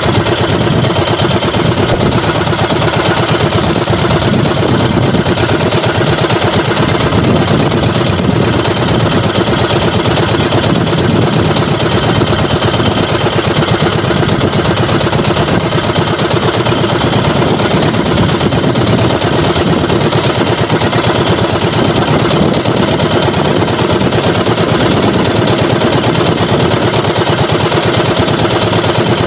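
Small outrigger boat engine running steadily at idle, with a fast, even beat.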